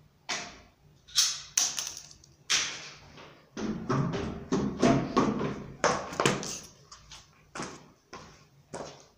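Footsteps coming down a wooden staircase: a series of sharp, irregular thuds on the treads, bunching into a quick run of steps in the middle, then fewer steps on the hard floor at the bottom.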